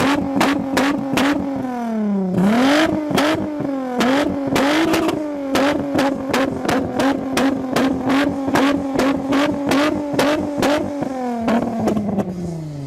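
Tuned car engine revved hard and held high against the rev limiter, with a rapid string of sharp exhaust bangs. The revs dip briefly about two seconds in, climb back, and fall away near the end.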